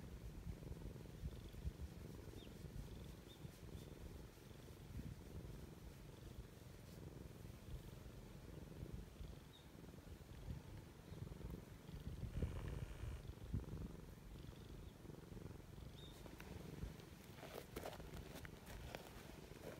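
Silver tabby cat purring as its back is stroked: a faint, continuous low rumble. A brief higher-pitched sound cuts in about two-thirds of the way through.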